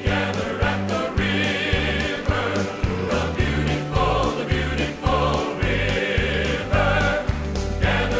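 Gospel music: a choir singing over a stepping bass line and a steady beat.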